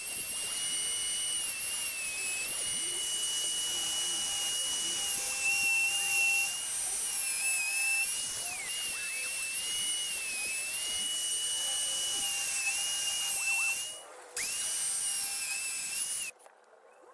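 Table-mounted electric router running with a steady high-pitched whine, its pitch sagging and recovering several times as wood is fed past the bit. It drops out briefly late on, runs again, and cuts off shortly before the end.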